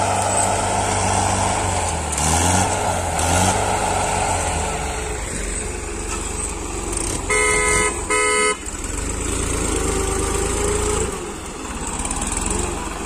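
Diesel tractor engines running, their pitch rising and falling a couple of seconds in, with two short horn blasts about seven seconds in.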